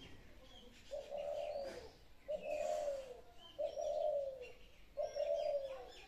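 A dove cooing four times, evenly spaced, each coo a low note just under a second long that drops in pitch at the end. Small birds chirp in short high notes in between.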